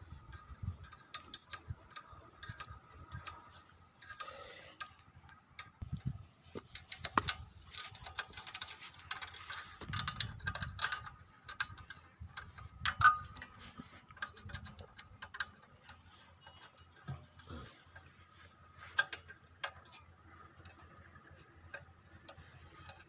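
Irregular metallic clicks and taps of a spanner working a nut on a petrol generator, louder and busier in the middle.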